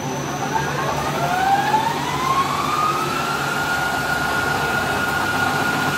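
CNC lathe spindle spinning up: a whine rising in pitch for about three seconds, then holding steady once the chuck is at speed, over the running machine and its coolant spray.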